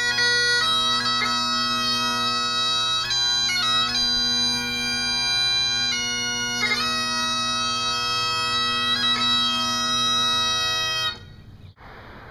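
Bagpipes playing a slow melody over steady drones, each note held a second or more. The piping cuts off abruptly about eleven seconds in, leaving a faint hiss.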